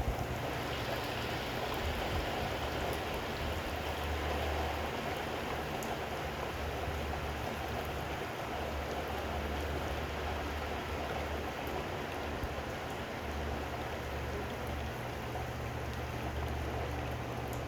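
Heavy rain falling steadily, an even hiss of drops.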